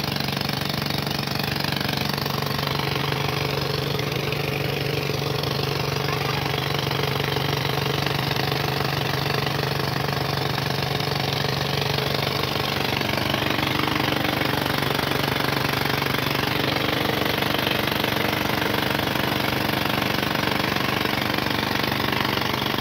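Old Petter diesel engine running steadily at a fast, even beat, powering a tubewell water pump.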